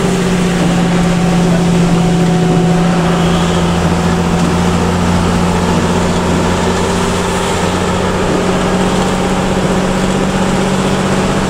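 Bus engine running at a steady cruise, heard from inside the cabin: an even low drone with road noise underneath.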